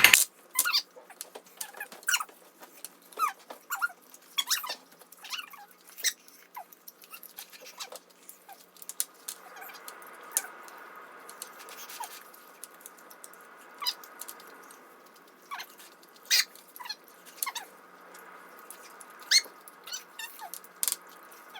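People eating breaded fried chicken drumsticks: scattered short wet smacks, clicks and little squeaks of chewing and lip smacking.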